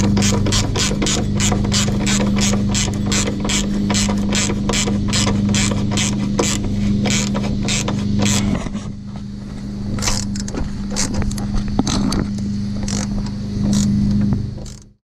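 Hand ratchet clicking rapidly, about four or five clicks a second, as a cab mount bolt is retightened; a little over eight seconds in, the clicking slows to a few scattered clicks. A steady low hum runs underneath until everything cuts off near the end.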